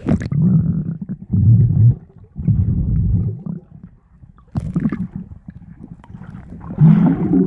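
Muffled water sloshing and gurgling heard through a submerged phone microphone, in several low, dull surges with a brief lull about halfway. The higher sounds are cut off.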